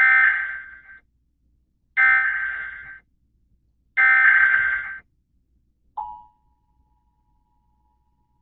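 Emergency Alert System SAME header: three warbling digital data bursts, each about a second long and a second apart. About six seconds in, the two-tone EAS attention signal starts with a sharp onset, then continues as a faint, steady pair of tones.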